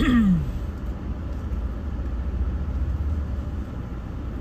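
Car driving, a steady low rumble of engine and road noise heard from inside the cabin. Right at the start there is a short sound that falls in pitch.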